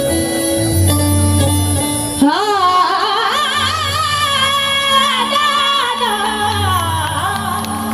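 Devotional bhajan music intro. Keyboard notes play for about two seconds, then a long, wordless sung melody enters with a rising glide and heavy vibrato, over repeated low bass notes.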